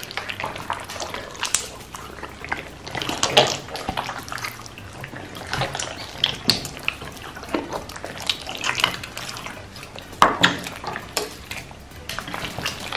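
A large mass of glossy, clear-based slime being squeezed and kneaded by hands. It makes irregular wet squelches and pops that sound as if it were all liquid, with a few louder ones about three and ten seconds in.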